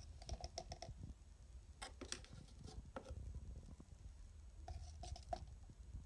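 Plastic scoop scraping and tapping in a tub of protein powder and tipping powder into a plastic shaker cup: a scattered series of soft clicks and taps.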